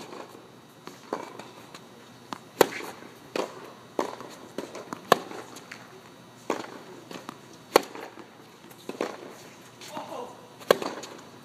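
Tennis rally on a hard court: a string of sharp pocks from racket strings striking the ball and the ball bouncing, about one every second or so. The loudest come from the near player's racket, about every two and a half seconds.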